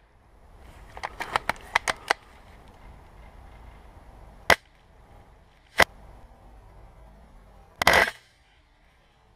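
Airsoft guns firing sharp pops: an irregular string of about seven shots a second in, two single shots a little over a second apart in the middle, and a short rapid burst near the end.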